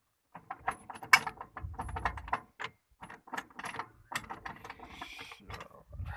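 Irregular metallic clicking and clattering of farm machinery, with a faint steady hum underneath.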